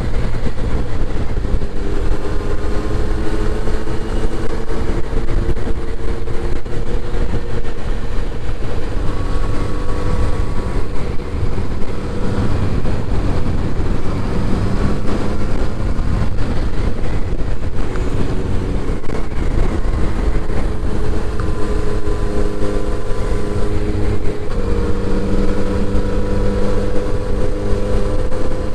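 Kawasaki inline-four motorcycle engine running under way, its pitch rising and falling gently as engine speed changes, over a heavy rush of wind and road noise.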